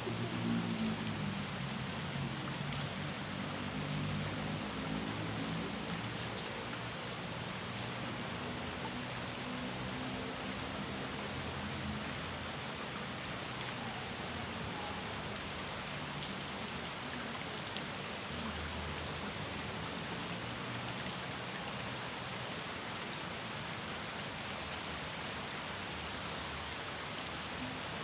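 Steady rain falling on a pond's surface, an even patter throughout, with two sharper single drop-like clicks in the middle.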